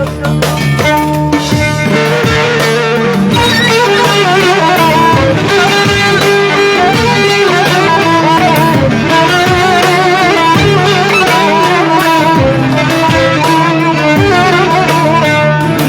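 Instrumental break in a Turkish song: a violin carries a wavering melody over plucked strings.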